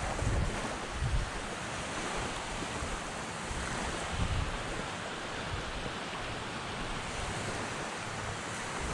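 Small waves lapping on a sandy shore, a steady wash of water, with wind rumbling on the microphone in a few gusts.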